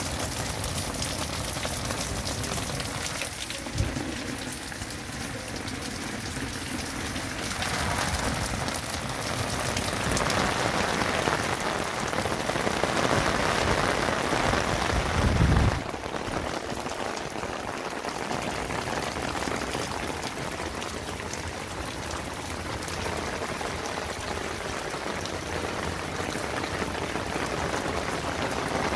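Heavy rain pouring onto a concrete patio and pattering on a fabric patio umbrella overhead: a steady hiss of rain that grows heavier through the middle and drops back abruptly about sixteen seconds in. A single short knock about four seconds in, and a low rumble just before the drop.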